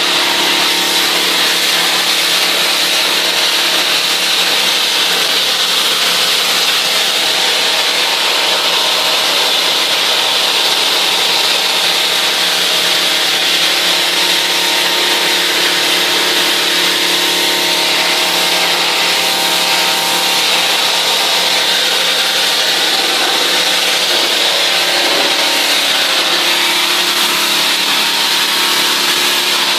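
Pressure washer running steadily: a constant hum from its motor and pump under the hiss of the water jet.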